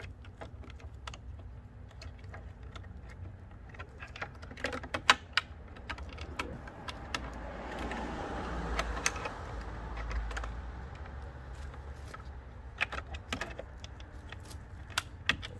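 Scattered small plastic clicks, taps and rattles as a light housing, its push clips and wiring connector are handled and fitted into a truck bumper, with a soft rushing noise that swells and fades in the middle.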